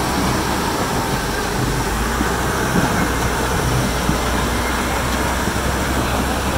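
Steady rushing roar of a muddy flash-flood torrent pouring over rocks, with a deep rumble underneath.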